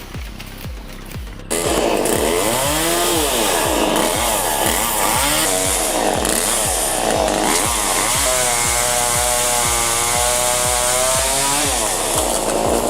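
A chainsaw starts suddenly and revs up and down repeatedly, then holds at high revs for a few seconds. Under it runs background music with a steady beat.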